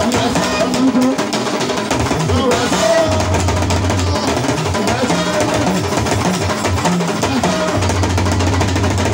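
Live hand-drum music: a dense, continuous run of fast drum strokes, with some held lower and middle tones under it.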